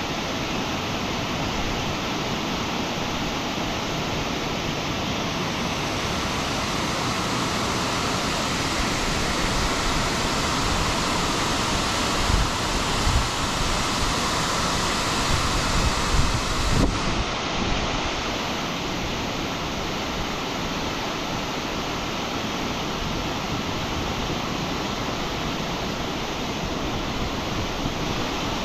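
Steady rush of fast-flowing water in the river below the dam. A few low bumps and rumbles come a little before the middle.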